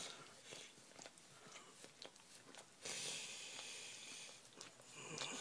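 A dog's licking and mouth noises: small wet clicks and smacks. About three seconds in, a steady rustling hiss starts up.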